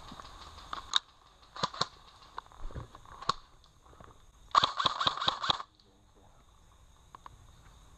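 Airsoft rifle firing: a few single sharp clicks early, then about halfway through a rapid burst of about seven shots lasting a second, the loudest sound.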